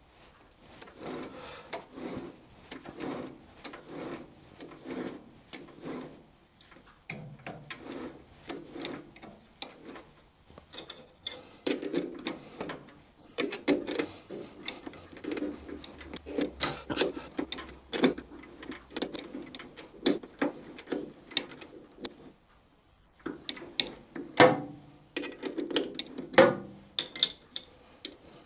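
Repeated sharp clicking, roughly two clicks a second in runs with short pauses, from hand-tapping an M8 thread in a cast-iron collar.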